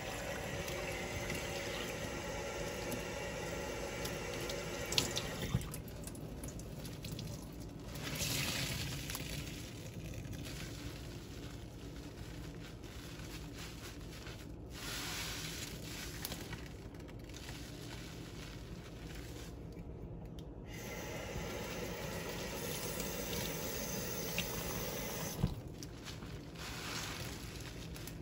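Tap water running into a stainless steel sink onto sponges full of cleanser paste, steady for the first five or six seconds. Then wet, soapy sponges are squeezed and pressed together by hand in foamy water, with a few sharp clicks.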